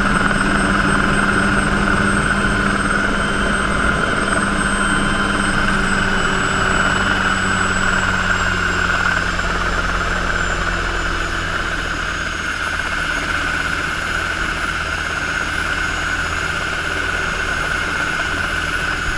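Helicycle single-seat kit helicopter's Solar T62 turbine engine and rotor running on the ground: a steady high turbine whine over rotor noise, its pitch sinking slowly. A low hum drops away about eight seconds in.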